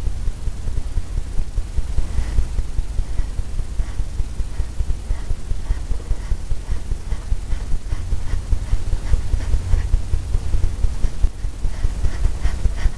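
Blender brush worked quickly back and forth on a stretched canvas: a fast, uneven run of soft thumps over a steady low rumble.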